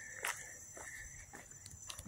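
Footsteps on dry fallen leaves, about two steps a second, over a steady high trilling of insects.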